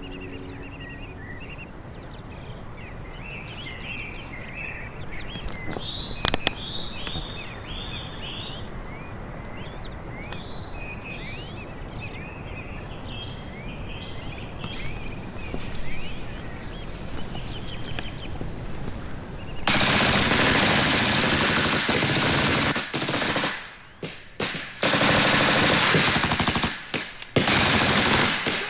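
Birds chirping and singing for most of the clip, then about two-thirds of the way in, heavy automatic small-arms fire breaks out and goes on in long bursts with a couple of short breaks.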